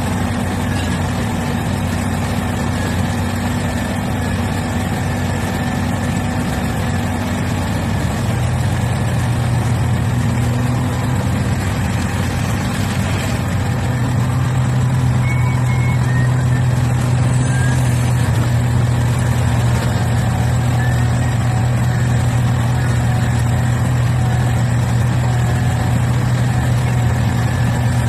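Heavy diesel engines of a large Komatsu hydraulic mining excavator and a rigid haul truck running as one steady low drone. The engine note grows louder and slightly higher about eight seconds in and again around fourteen seconds, as the excavator works its boom and bucket under load.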